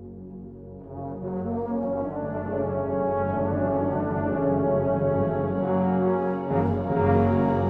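Brass band playing, building from a softer passage to a loud full-band sound over the first two seconds, with sustained chords.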